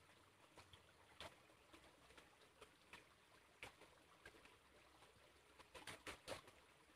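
Near silence with scattered faint clicks and ticks, several close together about six seconds in.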